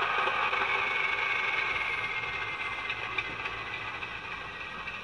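Hornby Class 31 model locomotive's DCC sound decoder playing the diesel engine shutdown sound through the model's small speaker. The engine note runs steadily and slowly dies away.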